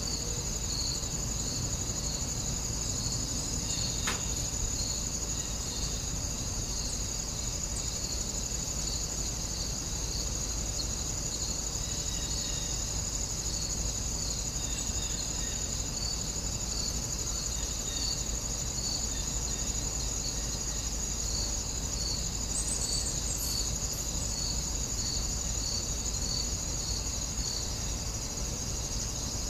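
Insects chirring steadily: a continuous high trill with a second, lower chirp repeating evenly a little over once a second, over a low steady rumble.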